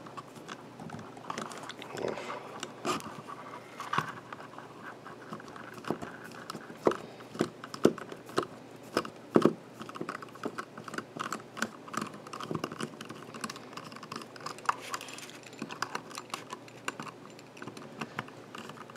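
Small screwdriver prying and scraping at the plastic landing-gear leg where it joins the motor housing of a DJI Mavic 2 drone arm: irregular light clicks and scrapes, with a few sharper clicks near the middle.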